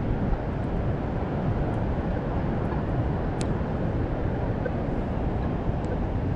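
Steady rush of surf on the beach, with one small click about halfway through.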